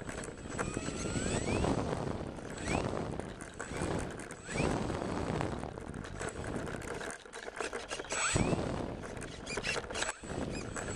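Onboard camera of an electric RC plane taxiing over rough dirt: an uneven rumbling and buffeting that comes and goes in surges, broken every second or two by short rising whines as the motor is blipped up.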